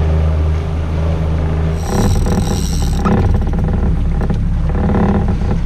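Boat engine running steadily at trolling speed. About two seconds in, the sound turns rougher and fuller, with a brief high whine.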